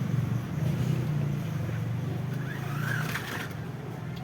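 Toy RC rock crawler's small electric motor and gearbox running steadily, with a brief higher sound about three seconds in, easing off slightly near the end.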